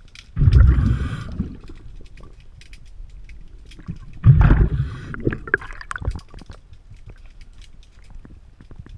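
Underwater, a diver's exhaled breath bubbles out of the regulator in two bubbly bursts about four seconds apart, each lasting about a second. Faint scattered clicks run between them.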